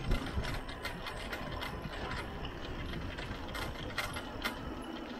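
Mountain bike rolling along a concrete road: a steady low rumble of tyres and wind, with irregular sharp clicks and rattles from the bike.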